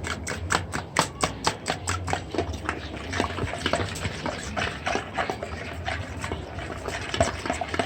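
A fork beating egg and milk in a basin, clicking against the sides of the bowl in a steady rhythm of about four or five strokes a second, becoming quicker and less even after about two seconds.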